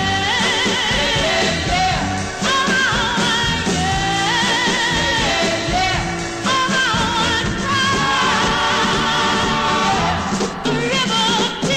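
Popcorn soul record playing: a singer holding long notes with a wide vibrato over a full band.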